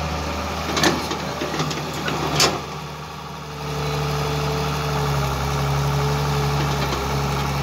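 Caterpillar E120 hydraulic excavator's diesel engine running steadily as the machine swings and digs, with two sharp knocks in the first few seconds. The engine sound dips briefly about three seconds in, then picks up again just before four seconds.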